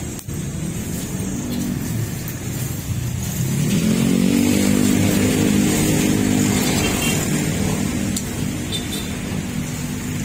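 A motor vehicle engine that rises in pitch as it picks up speed about three seconds in, runs steadily and loudest for a few seconds, then eases off.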